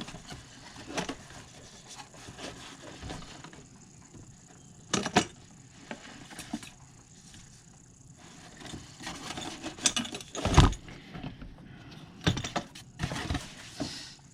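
Fishing reel and gear being handled and set down: scattered clicks, light knocks and rattles, with a sharper knock about five seconds in and a louder thump about ten and a half seconds in.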